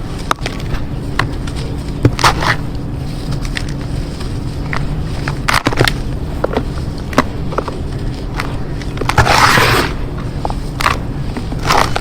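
Lumps of red dirt crumbling, with scattered small crackles and several short crunching bursts, the longest about nine seconds in, over a steady low hum.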